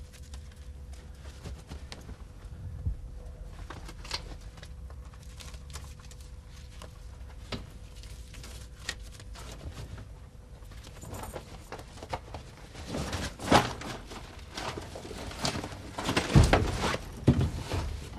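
Clothing, a wallet and a backpack being handled: light rustling and small knocks, a sharper knock about thirteen seconds in, and busier, louder handling near the end, over a faint steady hum.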